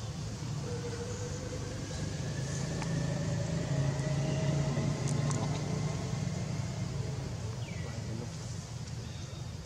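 Low engine rumble that swells about halfway through and then fades, with a faint, slowly rising whine: a motor vehicle passing at a distance.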